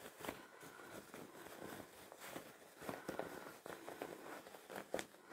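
Faint rustling and scrunching of fabric as a sewn fabric tube is gathered up by hand and turned right side out, with a few soft taps.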